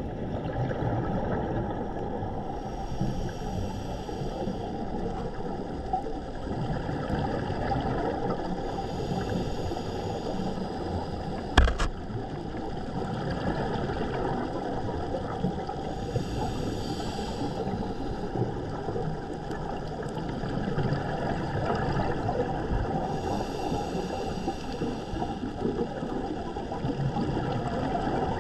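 Muffled underwater ambience picked up through a camera housing: a steady low rush with a gurgling burst of exhaled scuba bubbles every several seconds, and one sharp click near the middle.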